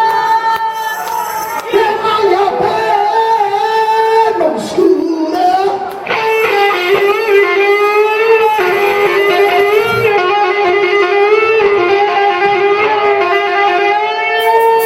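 Live rock band with an electric guitar lead playing long sustained notes that bend and waver in pitch.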